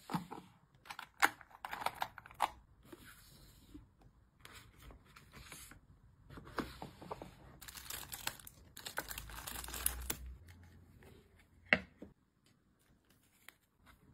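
Clear plastic bags and wrappers crinkling as small packaged items are put into plastic storage drawers, with a run of sharp plastic clicks and taps at the start. One loud sharp click comes near the end, then it goes quiet.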